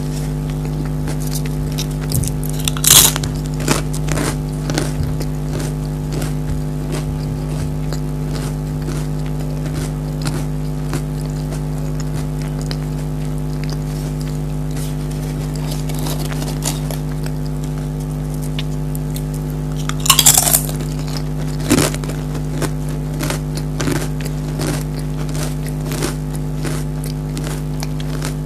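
Pringles potato crisps bitten and chewed close to the microphone: two loud crunching bites, a few seconds in and about two-thirds through, each followed by a run of smaller crackling chews. A steady low hum sits underneath.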